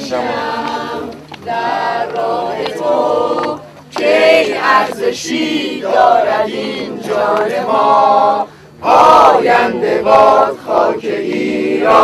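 A group of men and women singing together in chorus, in sung phrases of a second or two with short breaks between them.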